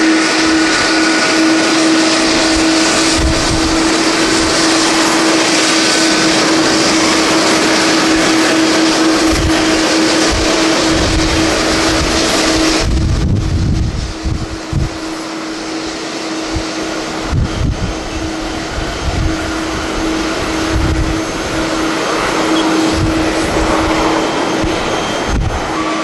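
Jet engine noise from an ANA Boeing 787 airliner rolling out after touchdown: a loud, steady roar with a steady droning tone under it, dropping off sharply about halfway through to a quieter jet noise. Strong wind buffets the microphone in irregular low gusts throughout.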